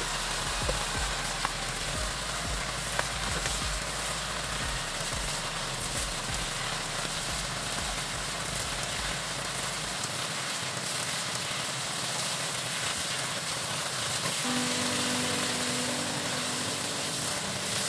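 Pork, onion and eggplant sizzling steadily in an oiled frying pan as they are stir-fried with a spatula, with a few light spatula clicks against the pan in the first seconds. Soft background music comes in about fourteen seconds in.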